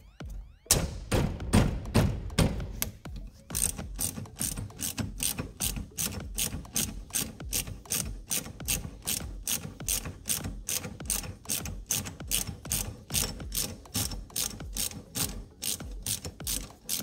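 Hand ratchet clicking as it winds out a brake caliper bolt, in an even rhythm of about three clicks a second. The clicks are louder and irregular in the first few seconds, with a few knocks.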